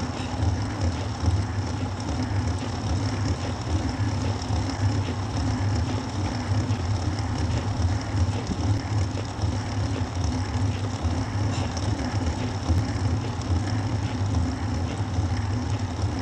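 Steady road and riding noise from a road bicycle in motion: a continuous low rumble with an even hiss over it.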